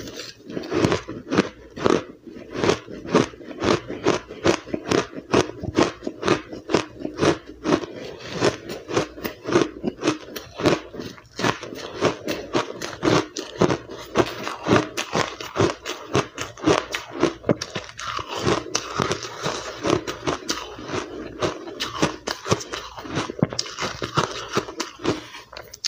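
Close-up chewing of powdery, blender-crushed ice: a rapid, steady run of crisp crunches, several a second.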